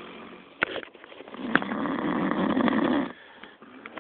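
Loud, rasping breaths through nose and mouth while eating a corn dog, with two sharp smacks in the first second and a half. A heavier stretch of breathing lasts about a second and a half and stops abruptly a little after three seconds in.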